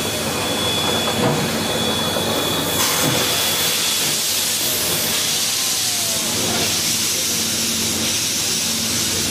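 C58 steam locomotive pulling slowly out of a station, with a loud, steady hiss of steam. The hiss grows brighter about three seconds in.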